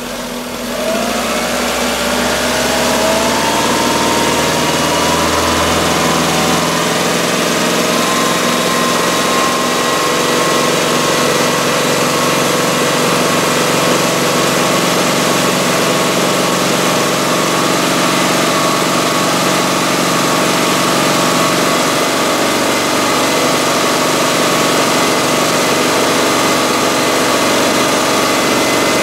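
Car engine revving up over the first couple of seconds, then held steady at about 2000 RPM with a rag stuffed down its tailpipe: a deliberately restricted exhaust, under which the intake vacuum slowly drops off.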